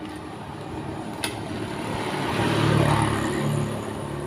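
A motor vehicle's engine passing on a road, growing louder to a peak about three seconds in and then easing off. A single sharp click a little over a second in.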